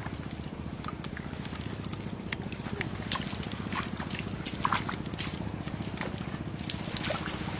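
Bare feet walking over wet mud and dry stubble, with scattered squelches, clicks and crackles, over a steady low hum.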